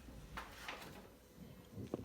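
Homemade mechanical ventilator prototype at work: a low hum with a few faint clicks, and more clicks starting near the end.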